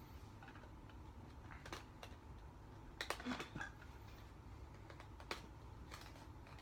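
Light scattered clicks and taps of a small cardboard box being worked open by hand to get a puzzle cube out, a few sharp ticks a second or so apart.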